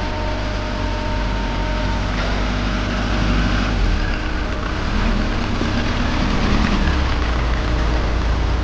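An engine running steadily with a low rumble, with a couple of faint steady whining tones in the first two seconds.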